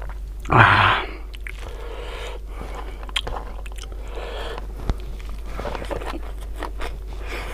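A person eating by hand close to the microphone: chewing and crunching of food, with a few sharp clicks. There is a loud, breathy burst about half a second in.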